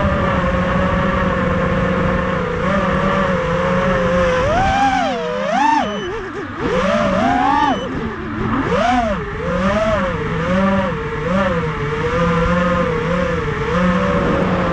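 Racing quadcopter's four brushless motors (Racerstar 2205 2300kv, spinning three-blade 5045 props) whining in flight, the pitch rising and falling with the throttle. The biggest pitch swings come from about four to nine seconds in, with a brief drop in level around six seconds.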